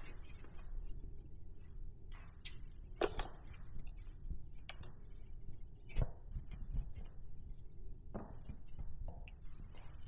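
Faint soft rubbing of a microfiber cloth wiping wax off glossy car paint and trim, with scattered light clicks and knocks, the loudest about three and six seconds in.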